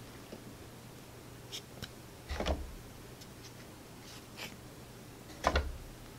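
Thick cardboard board-game tiles being shuffled and turned over in the hands: faint light clicks and scrapes, with two louder brief knocks of tile against tile, about two and a half and five and a half seconds in.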